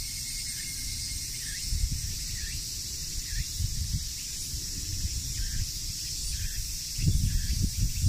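Steady high-pitched hiss of cicadas calling in the surrounding trees, with faint short chirps about once a second and low rumbling that grows stronger near the end.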